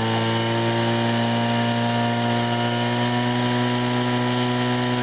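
Petrol engine of a portable fire pump running steadily at full throttle, driving water through the hose lines to the nozzles.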